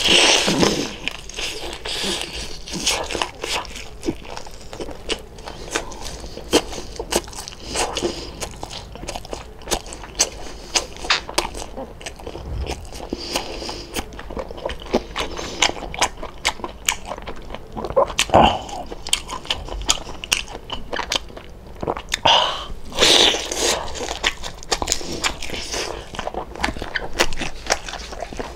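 Close-up eating sounds: a person biting and chewing crispy deep-fried pork belly (lechon kawali), with many irregular crisp crunches and wet chewing.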